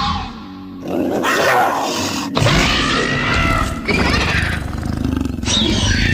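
Velociraptor creature sound effects: about four harsh screeching and growling calls in quick succession, each lasting about a second, the last one falling in pitch.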